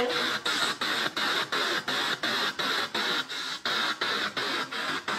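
P-SB7 spirit box sweeping through radio stations: hissing static chopped up about three times a second as it jumps from channel to channel.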